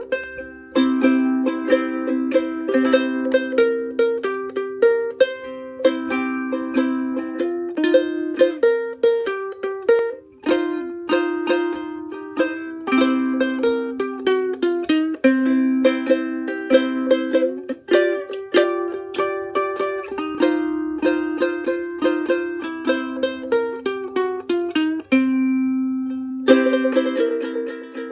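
Background music: a plucked-string tune, ukulele-like, picked note by note with a held chord near the end.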